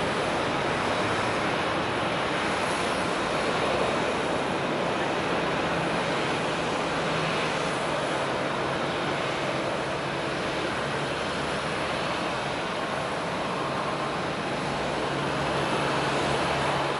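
Jet airliner engines running, a steady rushing noise with a faint low hum underneath.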